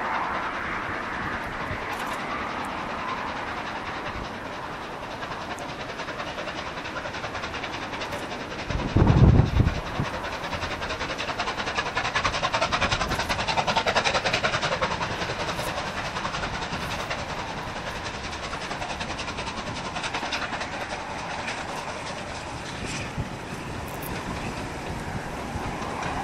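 Steam-hauled passenger train running past, its coaches clattering over the rails. A short, loud, deep thump comes about nine seconds in.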